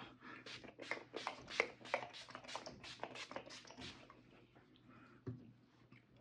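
A handheld pump spray bottle misted at the face in quick pumps: about fifteen short hissing sprays, roughly four a second, stopping after about four seconds. A single knock follows about a second later.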